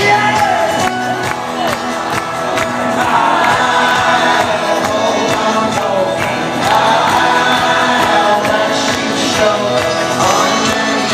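Live folk-rock band playing an instrumental stretch of a song, with the crowd singing along and cheering over it.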